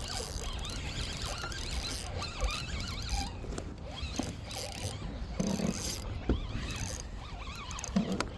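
Fishing reel being cranked steadily, reeling in a hooked bass.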